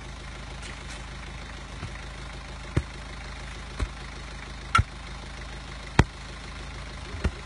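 4x4's engine idling steadily, with five sharp knocks about a second apart; the loudest comes about six seconds in.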